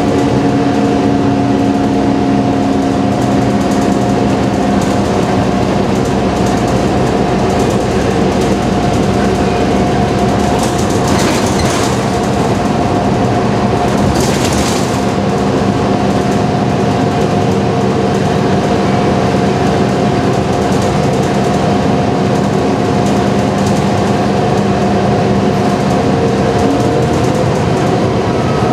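Cabin noise of a moving transit bus: a steady engine and drivetrain drone with held whining tones under constant road noise. Two brief hisses come about 11 and 14 seconds in.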